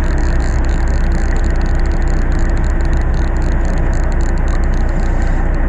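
Fishing boat's engine running with a steady low drone under a constant rushing noise.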